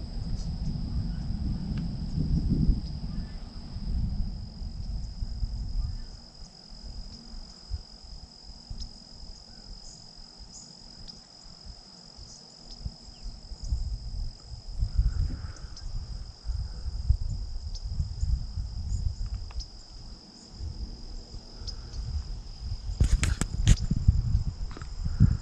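A steady high drone of insects singing, under gusts of wind buffeting the microphone. A few sharp knocks sound near the end.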